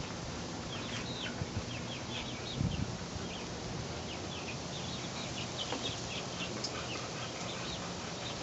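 Chickens cheeping, with many short, high peeps scattered throughout over a steady background hiss. A brief low thump comes about two and a half seconds in.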